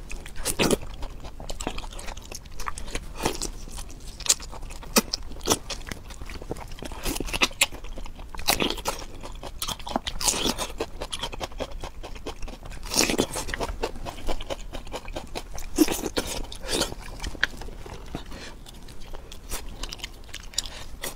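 Close-miked biting, crunching and chewing of food by one person: irregular crisp crunches, some sharp and loud, between softer chewing.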